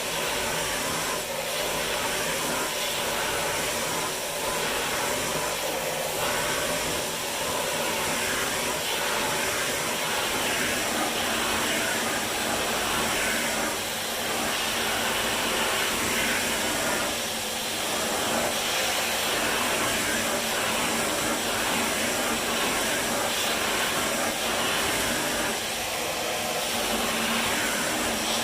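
Vacuum cleaner running steadily, a constant rushing hiss of motor and airflow whose level dips and swells slightly now and then.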